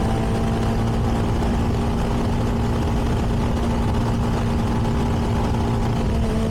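CFMoto 300NK's single-cylinder engine on its stock exhaust running at steady, unchanging revs, heard from a helmet camera with a low rumble of wind and road noise underneath.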